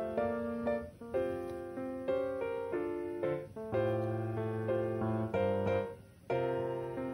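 Background piano music: a gentle run of single notes and chords, each fading after it is struck.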